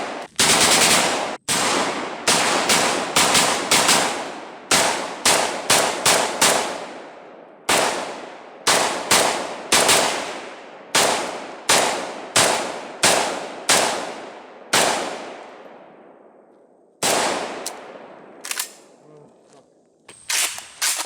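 Suppressed ZPAP85 AK-pattern pistol firing a long string of rapid semi-automatic shots, several a second, each with a short ringing tail. The pace slows, then after a pause come a few spaced shots near the end.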